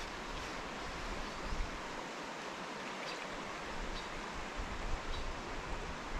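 Steady rushing of flowing river water, with a few faint small ticks.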